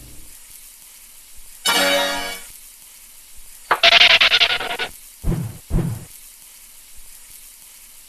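Sound effects for an animated film: a short buzzy tone about two seconds in, a sudden burst of hiss near the middle, then two dull thuds in quick succession.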